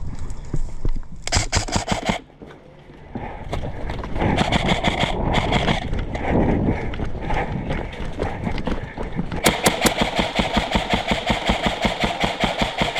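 Airsoft electric rifle (AEG) firing on full auto: a short rapid burst just over a second in, then a longer run of fast, evenly spaced shots from about 9.5 seconds to the end.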